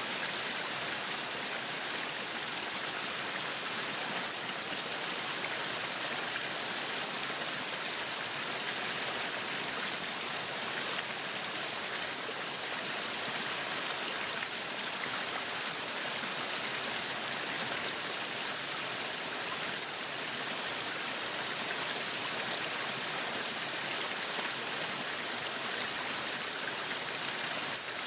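Meat sizzling on a yakiniku grill, a steady hiss and crackle that holds at one level throughout.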